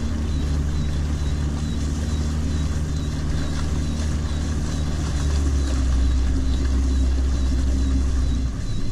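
Boat motor running steadily at low speed, an even low drone with no change in pitch.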